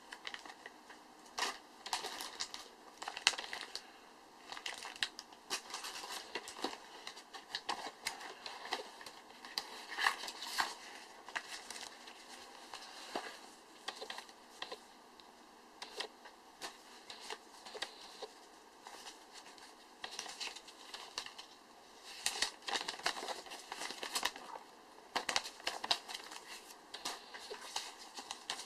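Packaging being handled: crinkling and rustling in irregular bursts, with small clicks and taps throughout.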